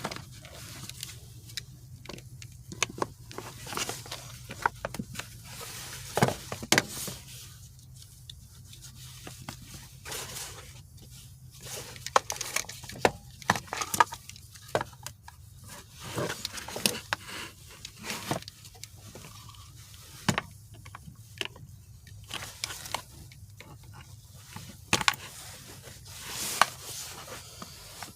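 Irregular sharp metallic clicks, clinks and scrapes of hand tools and parts being handled during work on a manual shifter assembly, with short quiet gaps between them. A steady low hum runs underneath.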